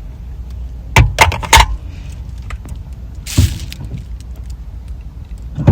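Snacks and a drink being handled inside a parked car over a low steady hum: four quick knocks about a second in, then a short hiss with a thud a little past halfway.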